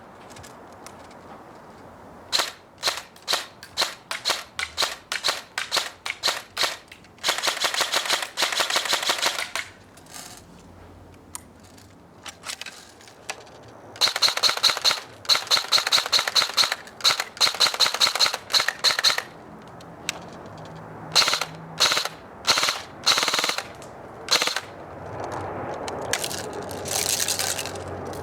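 LCT LC3 G3 airsoft electric gun firing: strings of single shots, with a full-auto burst about seven seconds in, a longer broken run of bursts from about fourteen seconds, and a short burst near the end.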